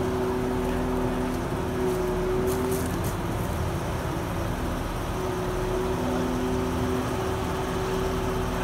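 Lifting crane's diesel engine running steadily while hoisting a steam locomotive boiler, a low drone with a humming note that fades in and out.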